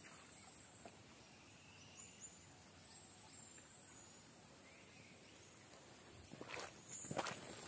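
Faint outdoor forest ambience: a steady high insect hiss with a couple of faint bird chirps. Footsteps through grass and leaves start near the end.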